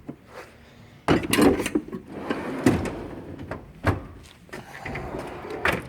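Metal tool box drawers sliding and knocking shut, with tools clattering inside: several sharp knocks with rattling between them.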